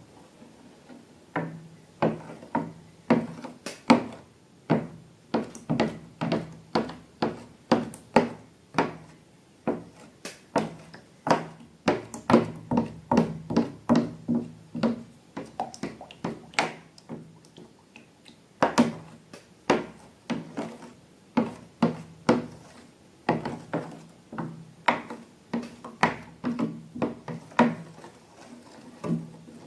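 Balloons and slime ingredients being handled on a tabletop: an irregular run of sharp taps and clicks, roughly one to three a second, with a brief pause a little past halfway.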